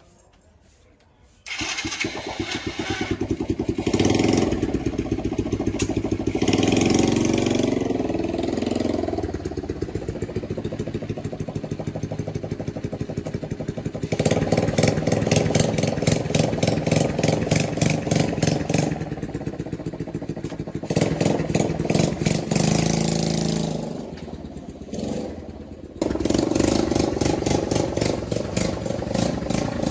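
Small motorbike engine of a homemade three-wheeler running with no muffler fitted, its open exhaust loud and firing in a rapid, even beat. It starts about a second and a half in and rises and falls with the throttle, changing abruptly several times.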